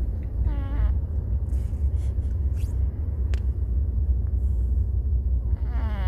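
Steady low rumble of a taxi on the road, with a short kazoo-like snore from a sleeping miniature apple-head chihuahua pup about half a second in and another starting right at the end.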